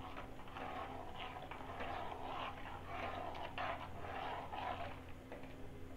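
A slotted spatula stirring a thin spice-and-water masala in a non-stick kadai: irregular swishing and sloshing strokes, with light scrapes against the pan.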